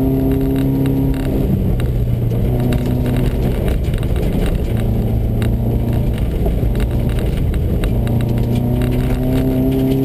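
Subaru rally car heard from inside the cabin at speed on a snowy gravel road: the engine runs at fairly steady revs, its note breaking and shifting about a second and a half in and again midway, over loud road and tyre noise with scattered clicks and knocks.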